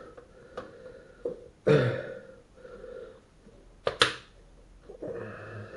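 Plastic snap-fit clips of an ASUS X541U laptop's case clicking into place as the palm rest is pressed down: a few light clicks and one sharp snap about four seconds in, with a loud breath about two seconds in.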